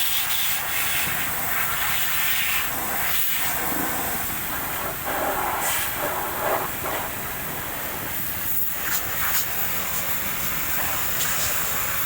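High-pressure washer spraying water over a bus engine, a steady hiss that swells and eases slightly as the jet moves.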